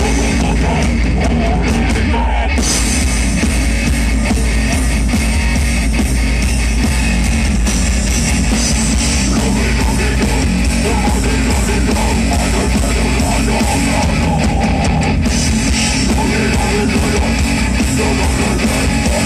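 Live rock band playing loudly: electric guitars over drums, continuous with no break.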